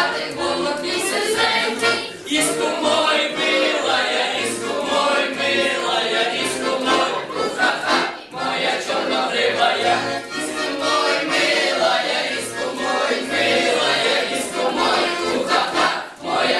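A group of teenage girls singing a song together, over steady repeating low bass notes of an accompaniment.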